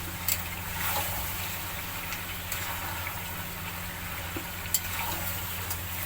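Chicken frying in spiced masala gravy in a pan, sizzling steadily, with a few sharp knocks of a stirring utensil against the pan, one just after the start and one near the end. A low steady hum runs underneath.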